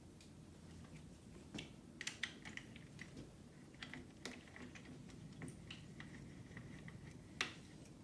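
Faint, irregular clicks and small metal taps as a bicycle front wheel is fitted into the fork and its axle fastened, with one sharper click a little after seven seconds in.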